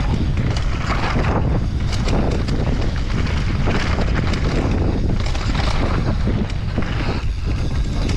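Wind buffeting the microphone of a camera on a mountain bike descending a dry dirt trail at speed, with tyres rolling over loose dirt and stones and scattered knocks and rattles from the bike over bumps.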